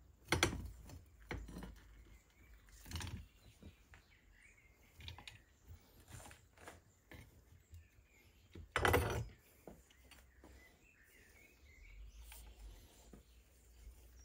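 Hand rivet-nut tool squeezed to crimp a threaded insert into a steel square tube: a few sharp metallic clicks and knocks, the loudest just after the start and about nine seconds in. Faint bird chirps behind.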